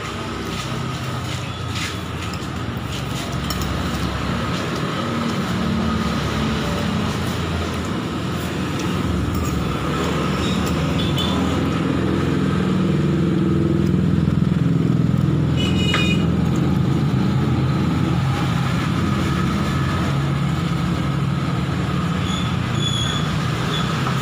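Motor vehicle engine running close by, a steady low rumble that grows louder over the first half and then holds. A few light clinks of metal cutlery on a plate come through over it.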